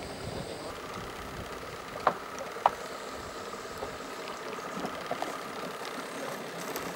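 Small boat's engine idling steadily, with two sharp knocks a little after two seconds in, about half a second apart.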